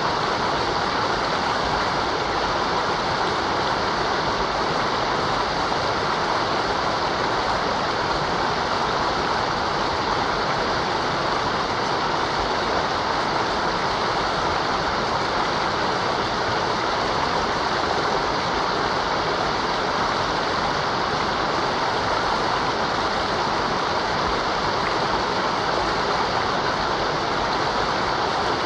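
Mountain river rushing steadily over rocks, an even, unbroken roar of water.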